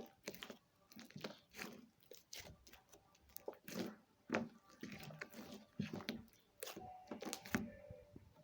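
Slime being squeezed and handled, giving many short crackles and pops at irregular intervals.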